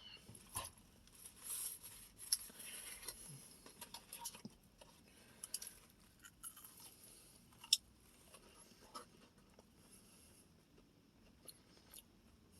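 Close-up chewing and crunching of Popeyes fried chicken and fries, with sharp mouth clicks and smacks scattered throughout, thickest in the first few seconds.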